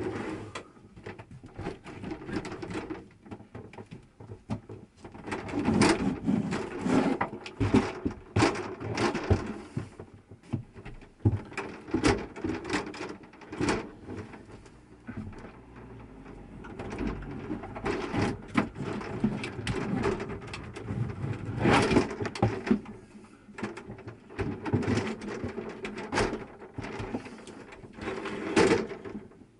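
Shower door panels being worked loose by hand: an irregular run of clicks, knocks and rattles from the panel frames in their tracks.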